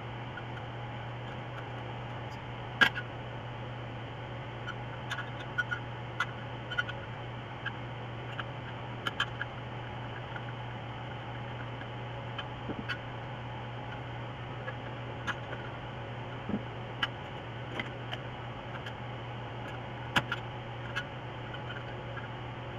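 Scattered light metallic clicks and taps of hand tools (pliers and a driver) on steel muffler parts as the muffler end cap and baffle are fitted, the sharpest click about three seconds in. A steady low hum runs underneath.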